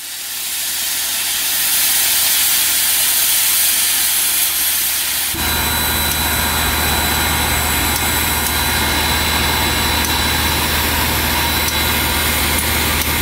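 Southern Railway No. 630, a 2-8-0 steam locomotive, hissing steam loudly and steadily. About five seconds in the sound changes abruptly to a steady hiss over a low hum.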